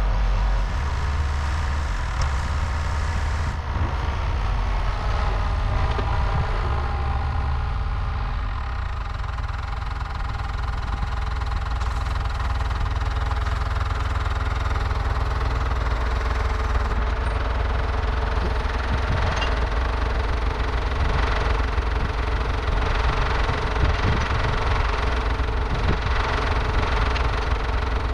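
An engine running steadily at idle, with an even low rumble.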